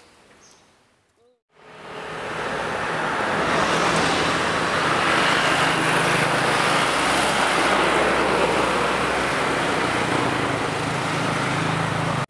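Road traffic: a motor vehicle's engine running steadily under a broad rush of road noise. It swells in after a brief near-silence a second or so in.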